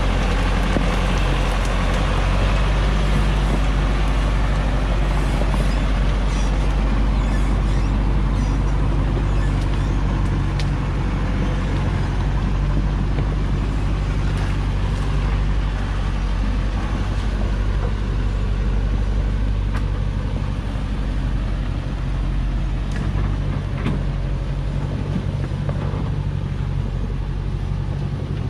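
Diesel engine of a Hoa Mai log truck loaded with acacia logs running steadily as the truck crawls through deep mud on a hill track, with a few faint clicks over it.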